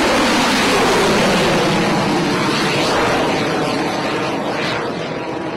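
Rocket engines at liftoff: a loud, dense, steady blast of noise that eases slightly toward the end.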